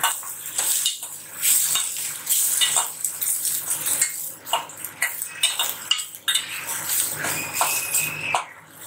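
Steel spatula scraping and knocking against a stainless-steel pan in quick, irregular strokes, stirring frying onions, garlic and thuthuvalai leaves.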